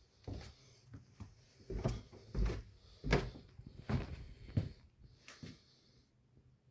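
Irregular series of sharp knocks and thumps, about ten over five seconds, dying away about five and a half seconds in.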